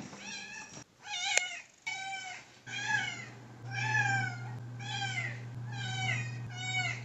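A domestic cat meowing over and over, about eight drawn-out calls in a row, each rising and then falling in pitch. A steady low hum runs underneath from about two seconds in.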